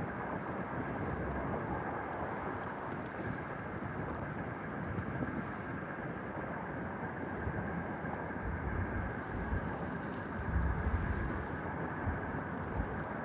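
Distant airliner jet engines running at high power as the plane aborts its landing and climbs away, a steady rumble, with wind buffeting the microphone, strongest a little past the middle.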